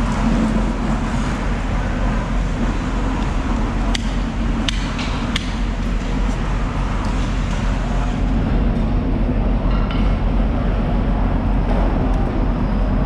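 Three sharp chops about 0.7 s apart a little after four seconds in: a heavy cleaver striking through the tail of a bluefin tuna on a wet concrete floor. A steady low drone from machinery runs underneath throughout.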